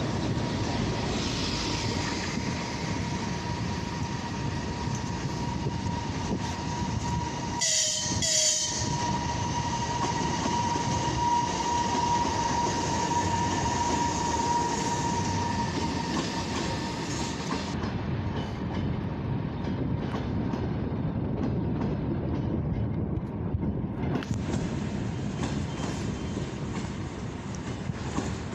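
An EP2K electric locomotive with a passenger train running past, the wheels clicking over the rail joints, with a steady high whine that fades out about two-thirds of the way in. A brief sharp double burst comes about eight seconds in.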